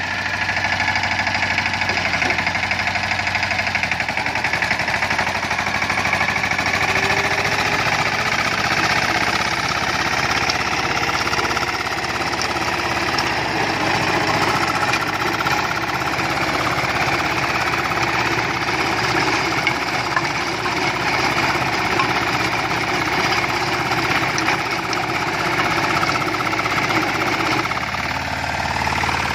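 Captain compact tractor's diesel engine running steadily under load, driving a rear-mounted rotavator that is tilling the soil.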